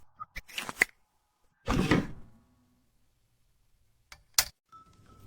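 Sound effects in an animated cartoon: a few quick clicks, then a louder thud about two seconds in, a single sharp click later on, and a faint steady tone starting near the end.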